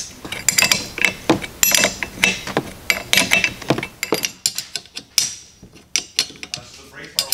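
Ratchet wrench clicking as it is swung back and forth, tightening the 17 mm nuts on the windshield wiper arms. The clicks come in quick runs for about four seconds, then only a few scattered clicks follow.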